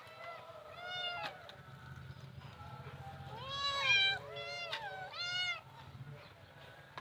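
Kittens meowing to be fed, one arched meow about a second in, then three more in quick succession from about three and a half seconds in, the loudest near four seconds.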